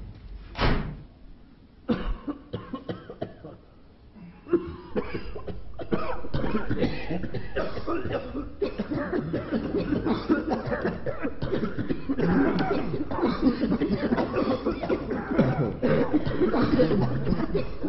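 A man coughing: one harsh cough just under a second in, a quick run of short coughs about two seconds in, then from about six seconds on an unbroken coughing fit that gets louder toward the end.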